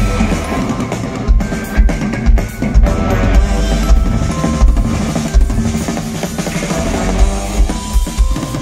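Live pop-rock band playing an instrumental passage through a concert PA, led by the drum kit with a steady beat of bass drum hits about two a second under bass and keyboards, recorded on a phone from within the crowd.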